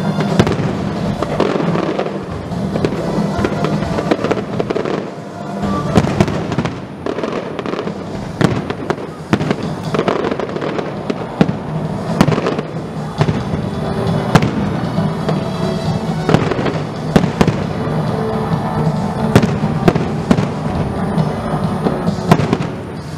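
Aerial fireworks shells bursting in quick succession: many sharp bangs and crackles, densest and loudest around six seconds in and again near the end.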